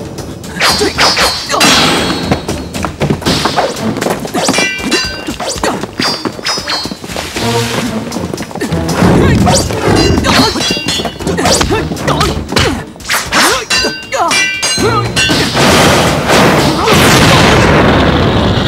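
Film fight sound effects: a rapid series of hits and thuds with metallic clangs that ring briefly, as of weapons clashing, over background music. The last few seconds swell into a louder, steadier rush.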